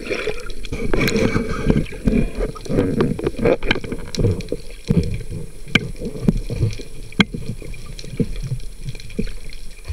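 Water sloshing and rumbling against an underwater camera housing on a speargun, with scattered sharp clicks and knocks, while the shooting line is hauled in.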